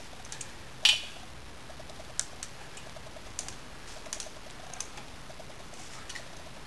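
Light metallic clicks and ticks from a hand-turned T-handle tap wrench driving the special installer tap through a thread insert in an engine block's main-cap bolt hole, with one sharp click about a second in. The tap expands the bottom threads of the insert to lock it in the block.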